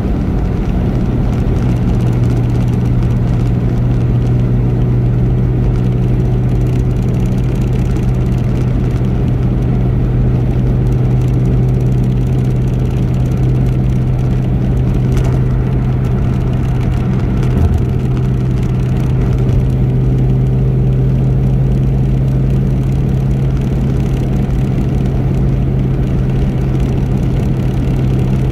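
Car travelling at a steady highway speed: a steady, even drone of engine and road noise with a strong low hum.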